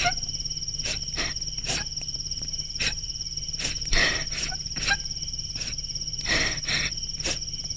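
Crickets trilling steadily in a high pitch, with short sharp clicks at uneven intervals, about two a second, over a low steady hum.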